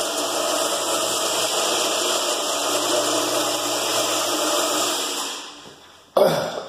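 Electric floor buffer's motor running steadily, then winding down and dying away about five seconds in. A sudden knock follows just after.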